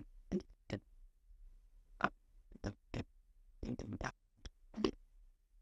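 Light, irregular clicks of metal pliers and wire against the ring as the wrap wire is pushed around the ring shank, about nine small ticks, some in quick pairs.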